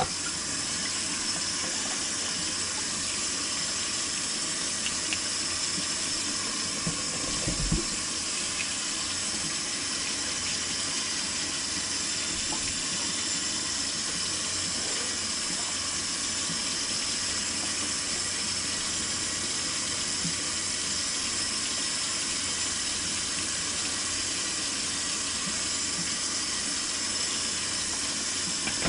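Kitchen tap running in a steady stream, with a couple of soft knocks about eight seconds in.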